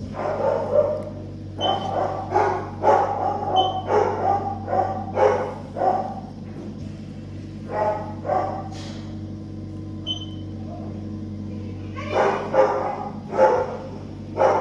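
A dog barking in runs of short, quick barks, several a second, with pauses between the runs, over a steady low hum.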